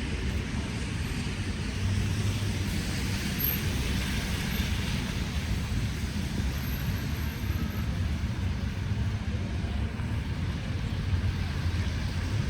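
City street traffic: a steady low rumble of road vehicles, with one passing car's tyre hiss swelling about two seconds in and fading by about six seconds.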